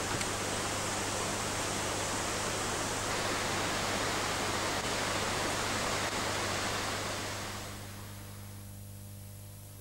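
Trafalgar Falls waterfall: a steady rush of falling water that drops lower in level near the end.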